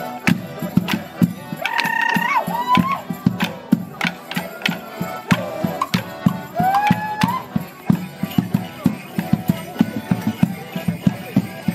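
Border morris stick dance: wooden sticks clacking together in a quick, rhythmic pattern over a band playing dance music on melodeon. The dancers give a couple of short shouted calls, about two seconds in and again about six seconds in.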